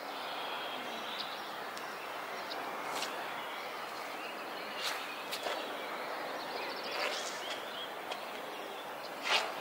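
Outdoor ambience: a steady hiss of background noise with birds chirping now and then, including a short rapid trill about seven seconds in. A few sharp clicks stand out, the loudest near the end.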